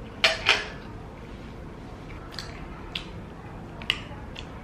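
Cutlery clinking against a metal serving pan: two sharp clinks close together just after the start, then a few lighter clicks later.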